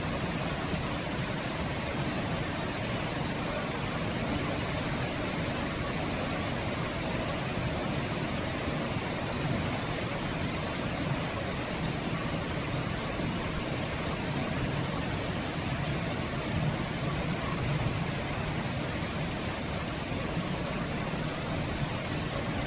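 Steady rain falling, a continuous even hiss with no thunderclap.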